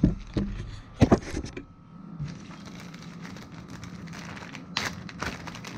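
Handling noises: a couple of sharp knocks at the start and about a second in, then light crackling and clicks over a faint steady hum.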